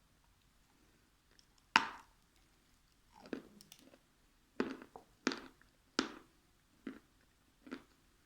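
A person chewing and biting food close to the microphone: about seven separate crunchy mouthfuls a second or so apart, the first the loudest.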